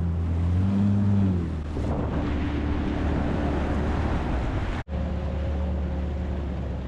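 Sea-Doo personal watercraft engine running, its pitch dropping about a second and a half in as the throttle eases off, then holding a lower steady note over splashing water and wind noise. The sound cuts out for an instant about five seconds in.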